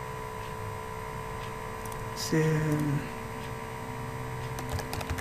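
Steady electrical mains hum and hiss in the recording, with a short held vocal 'uh' about two seconds in and a few faint clicks near the end.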